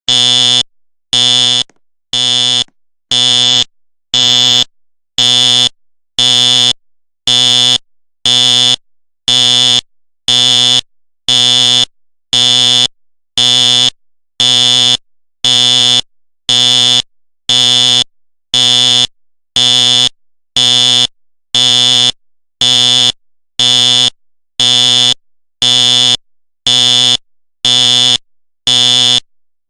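Simplex fire alarm sounding in code pulse: a loud, harsh buzzing blast about half a second long, repeating evenly about once a second.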